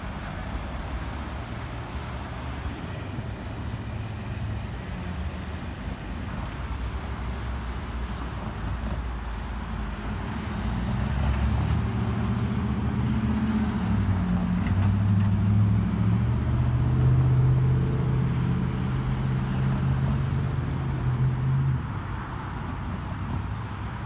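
Road traffic noise, with a vehicle engine's low drone swelling from about ten seconds in and falling away around twenty-two seconds.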